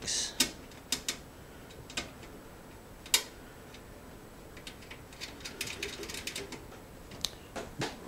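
Sharp metallic clicks and taps as motherboard standoffs are fitted into a computer case, scattered and irregular, the loudest about three seconds in, with a run of quicker small ticks around six seconds.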